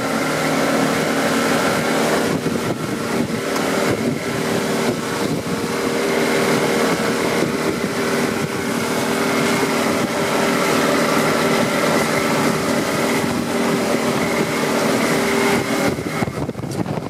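Motorboat engine running steadily under way at an even pitch, mixed with the rush of wind on the microphone.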